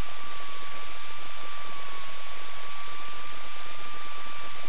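Aircraft radio static heard through the headset intercom: a steady, even hiss with a faint steady whistle running through it.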